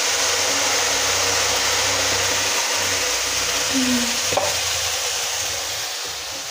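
Hot oil sizzling and bubbling steadily in a frying pan, with green peas added partway through. The sizzle eases slightly after about four seconds, and there is a faint knock at about that point.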